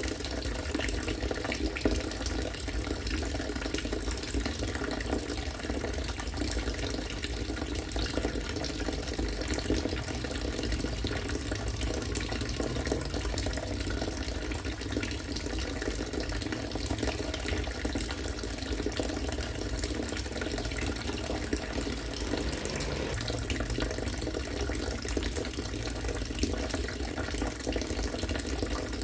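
Rainwater from a harvesting setup pouring in a steady stream, splashing into water.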